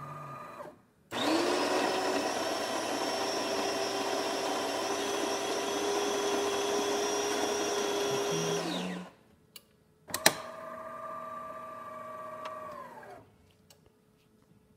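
DeLonghi Magnifica bean-to-cup espresso machine starting a shot: a motor hum stops under a second in, then the built-in coffee grinder grinds beans loudly for about eight seconds and stops. After a click, the brew unit's motor drives the infuser for about three seconds, its hum falling in pitch as it stops, so the freshly replaced transmission is moving the infuser again.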